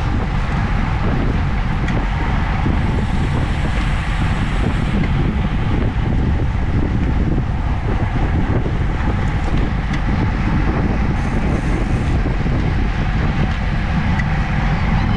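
Steady rush of wind buffeting the microphone of a camera on a road bike riding at about 25 mph.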